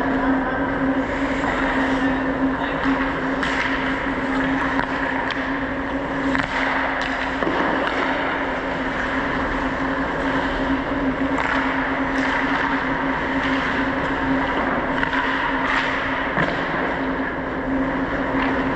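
Ice hockey play: skate blades scraping the ice and scattered sharp clicks of sticks and puck, over a steady low hum.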